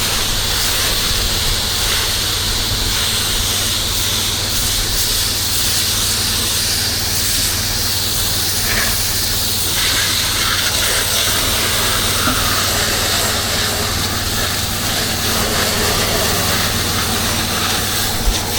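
Pressure washer spraying through its wand, a steady hiss over the even low hum of the washer's engine and pump.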